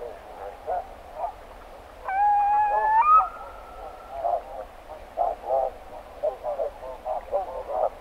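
Roosting barnacle geese calling in a steady chatter of short yapping calls. About two seconds in, a Eurasian curlew gives one loud whistled call lasting about two seconds that steps up in pitch partway through.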